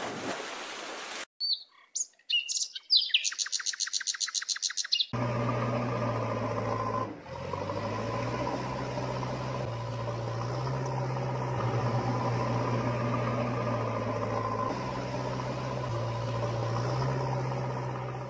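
A short burst of hiss, then a few high chirps and a fast run of clicks, about ten a second, for a couple of seconds. Then a steady engine-like hum takes over, its low note shifting slightly in pitch now and then.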